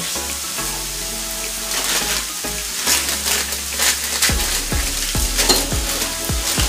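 Chopped chicken and buttered hoagie rolls frying on an electric griddle: a steady sizzle with many small crackling pops.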